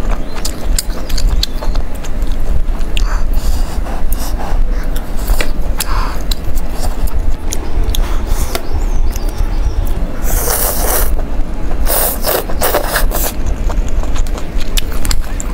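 Close-miked eating sounds: a person chewing hot-pot food, with many small wet clicks and louder noisy bursts about ten and twelve seconds in, over a steady low rumble.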